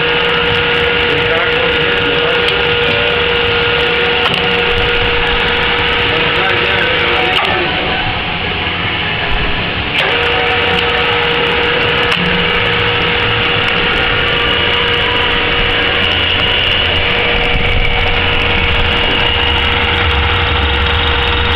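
Burgmaster turret drill press running: a steady machine drone with a constant whine. The whine drops out for about two and a half seconds a third of the way in, then comes back with a click.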